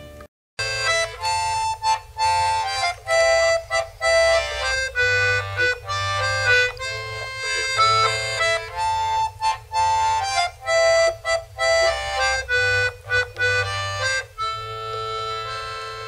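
Accordion playing a tune in short, detached notes and chords after a half-second break, ending on a held chord that slowly fades.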